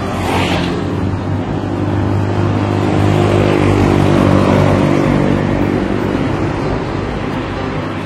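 A motor vehicle engine running steadily, growing louder through the middle and easing off again toward the end.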